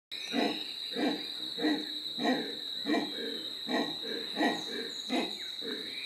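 Howler monkey giving a rhythmic series of deep, hoarse calls, about nine in six seconds and roughly one every two-thirds of a second. A steady high whine runs underneath.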